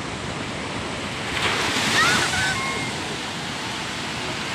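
Ocean surf breaking on a sandy beach: a steady wash of waves that swells as a wave breaks about a second and a half in and then eases off.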